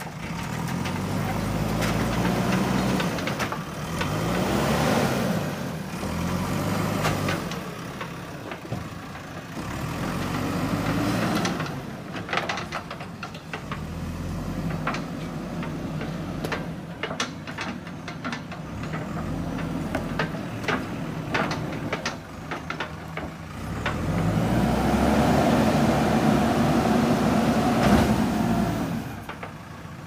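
JCB 3DX backhoe loader's diesel engine running and revving up and down in several long swells as the machine drives and works, with scattered knocks and clanks in between.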